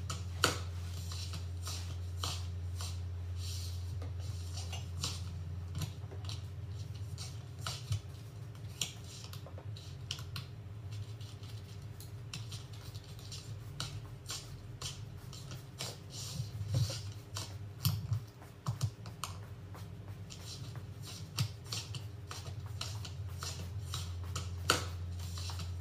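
Scattered light clicks and taps of small objects being handled on a table, with a few louder knocks, over a steady low hum.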